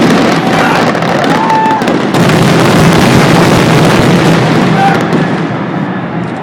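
A fireworks display: a dense, continuous crackle of many bursts going off together. It grows louder about two seconds in and eases off near the end.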